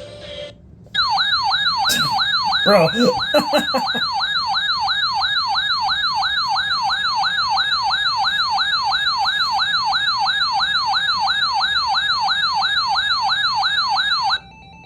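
Weather alert radio's electronic siren alarm, a loud warbling tone rising and falling about three times a second. It starts about a second in and cuts off abruptly near the end, signalling a new severe weather warning coming in.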